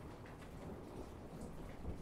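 Steady rain with a low rumble of thunder underneath, and scattered raindrops ticking close by.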